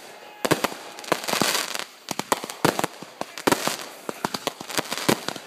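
Consumer aerial fireworks going off: a rapid, irregular string of sharp bangs and pops, with a stretch of dense crackling in the first couple of seconds.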